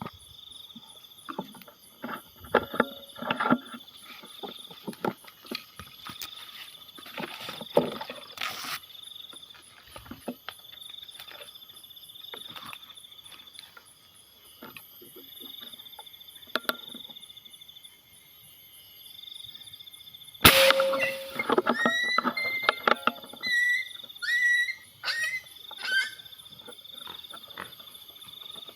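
A single gunshot about two-thirds of the way in, followed by a string of short, high, yelping cries from the wild pig just shot in the head, cries that sound like a dog's. A steady pulsing insect drone runs underneath, with rustling in the undergrowth.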